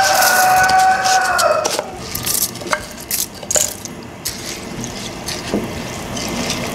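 Pot of broth with peas and vegetables boiling and bubbling around freshly added rice, with small scattered pops and clicks. A held music chord sounds over it for the first two seconds, then stops.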